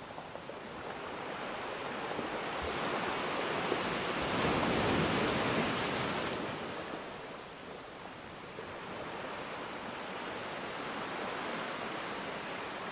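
Sea waves washing ashore in a steady noisy rush. One wave swells to its loudest about four to six seconds in, then fades back.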